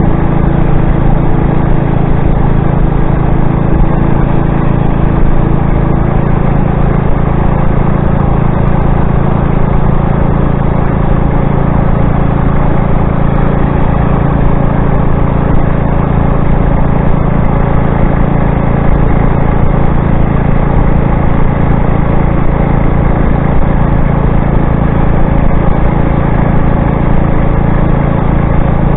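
Motorized bicycle engine running steadily under way: a loud, even drone that holds the same pitch throughout, with one higher tone in it fading out about six seconds in.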